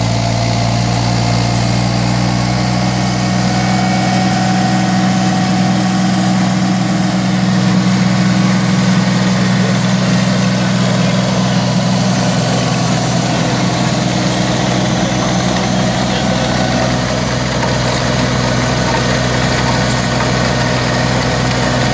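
Kioti CK35 compact tractor's diesel engine running steadily under load, driving a tractor-mounted chain trencher that is cutting through soil. The sound holds even throughout.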